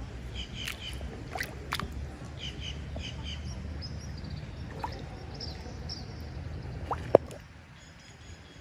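Outdoor ambience: birds chirping now and then over a low steady rumble, with a few sharp clicks and one louder knock about seven seconds in, after which it goes quieter.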